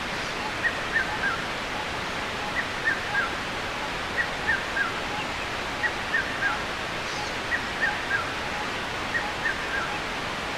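Steady rush of water with a bird calling over it, repeating a phrase of three short falling chirps about every second and a half.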